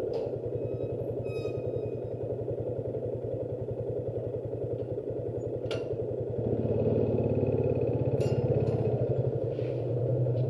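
Motorcycle engine idling with an even firing beat, growing louder about six and a half seconds in. A few sharp clicks come near the start, about six seconds in and about eight seconds in.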